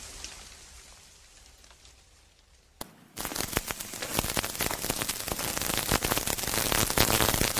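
Sound effect of a broken live power line lying on the ground, crackling with electric sparks. After a fading noise and a moment of near quiet, the crackle starts about three seconds in with a click and goes on as a dense run of rapid ticks, growing slowly louder.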